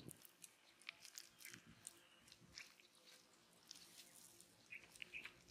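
Hands squeezing and kneading lumps of wet mud: faint, irregular squelches and small crackles.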